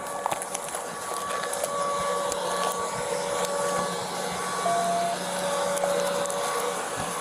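Steady machine hum with a thin, steady whining tone over it, broken by scattered light clicks and knocks.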